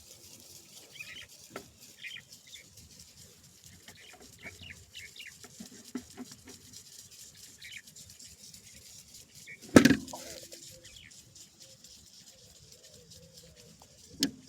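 Quiet handling noises while working on a motor starter's wiring: small scattered clicks, a sharp knock about ten seconds in and another near the end, with faint high chirps in the background.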